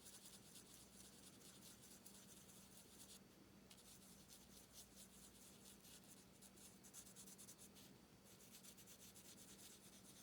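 Faint scratchy strokes of an alcohol marker tip rubbing back and forth on cardstock, with two short pauses, over a low steady hum. This is the light shade being worked over the dark shade to blend them.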